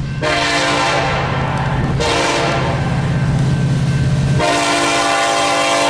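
Freight train's locomotive air horn sounding: a long blast of about a second and a half, a short one around two seconds in, then a long blast starting past four seconds in that runs on. A steady low locomotive engine drone sits under the first two blasts.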